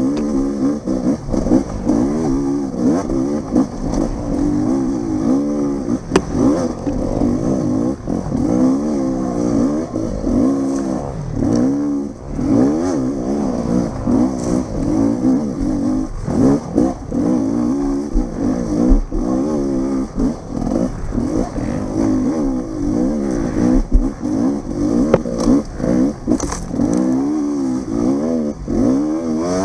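Dirt bike engine revving up and down again and again as it is ridden hard off-road, rising in pitch, dropping back and picking up again every second or two. Frequent short knocks and clatter run through it.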